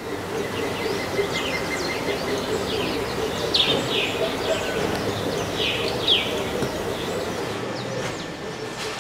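Dawn chorus of several birds: short falling chirps and whistles, with a quick run of repeated notes in the first two seconds, over a steady low background hum.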